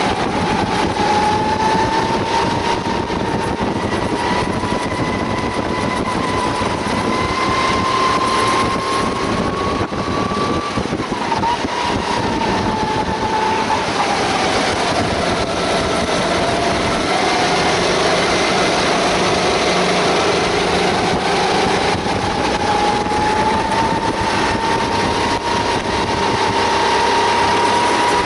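Sodi rental kart engine running under racing load, heard from the driver's seat. Its pitch climbs on the straights, drops through the corner in the middle, then climbs again, over a steady rushing noise.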